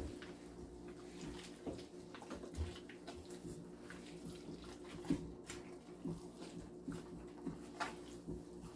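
Hands squeezing and mixing sticky cornmeal dough for ablo in a plastic bowl: irregular soft wet squelches and light slaps about every half second, with a sharper slap about five seconds in. A steady low hum runs underneath.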